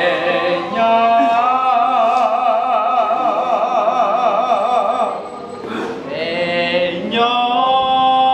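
A man singing unaccompanied in Hmong, holding long notes: a long wavering note with a wide vibrato, a brief break, then a long steady held note near the end.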